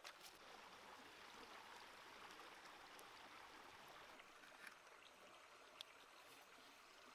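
Faint, steady rush of a shallow creek running over rocks, with a few light clicks.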